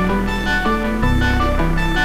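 Background music with plucked-string instruments and a steady bass line.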